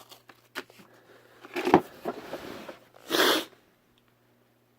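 Handling noise of small objects being picked up: a few light clicks, a sharp knock with rustling after it, and a short loud hissing burst a little after three seconds.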